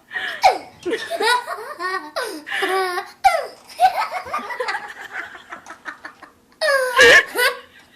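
A young girl laughing in short repeated bursts, quieter through the middle, with a loud burst of laughter about seven seconds in.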